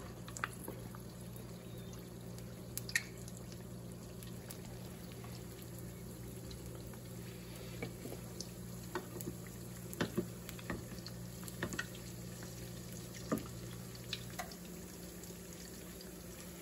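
Calzones deep-frying in canola oil at about 425 °F: a steady bubbling hiss with scattered small pops and crackles.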